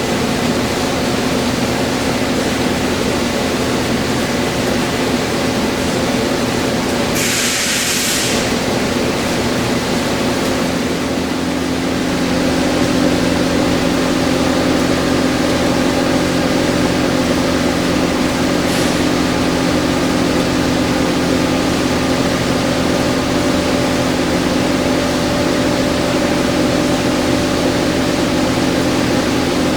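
Steady electric machine hum with several fixed tones. A brief hiss comes about seven seconds in, and the hum grows slightly louder around twelve seconds.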